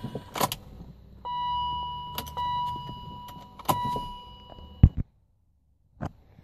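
Scattered clicks and knocks of handling inside a 2003 BMW 525i over a steady high electronic tone. A sharp loud click comes near the end, after which the sound drops almost to nothing.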